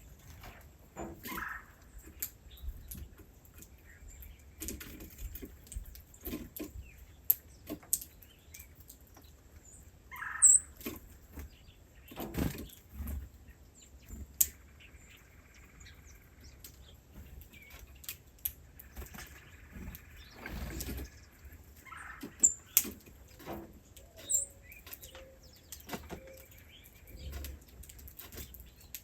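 Small birds giving short, sharp, high chirps now and then, among scattered rustling, clicks and knocks.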